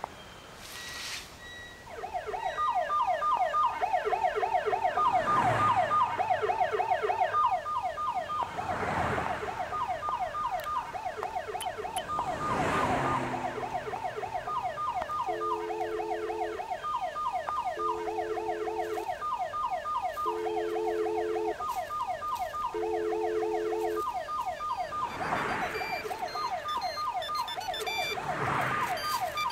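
Car alarm going off and cycling through its electronic tones: rapid warbling chirps, groups of high beeps, and then a pulsing lower two-tone sequence, repeating. It starts about two seconds in, with a few swelling whooshes over it.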